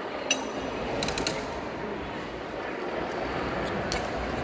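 Gumball vending machine's metal crank being turned by hand, its coin mechanism clicking and ratcheting in a few short clusters.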